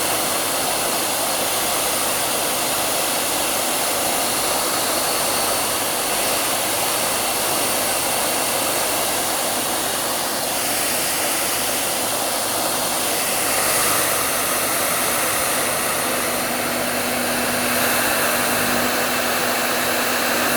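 Hair dryer running steadily, a constant hiss. Its tone shifts slightly about halfway through, and a low hum joins in near the end.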